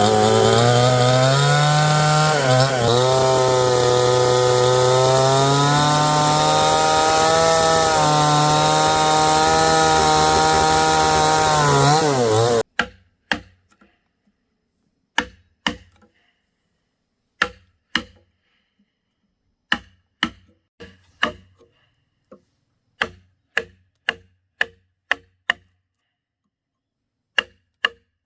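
A chainsaw running and cutting wood, its engine pitch dipping and rising under load, stops suddenly about halfway through. Then come separate sharp knocks, one or two a second, with silence between.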